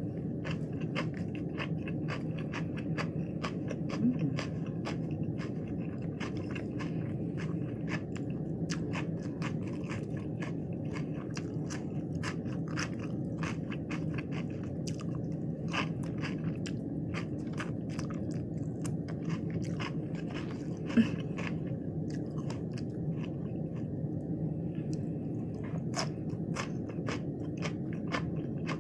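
Close-up chewing and crunching of lettuce wraps with raw vegetables, many sharp crisp crunches in an irregular run over a steady low hum. Two brief louder blips stand out, about four seconds in and about two-thirds of the way through.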